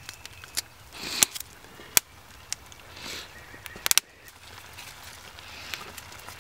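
Wood coals crackling under a frying pan of vegetables, with several sharp pops and a few short, soft rushing sounds.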